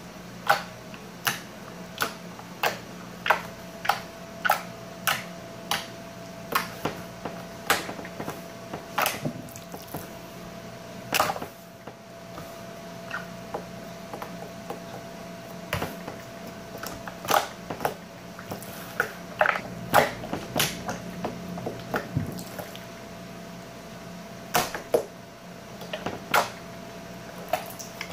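Slime being poked and pressed with the fingers, making sharp little pops and clicks as air is squeezed out of it. The pops come evenly, about one every two-thirds of a second, for the first few seconds, then irregularly, over a steady low hum.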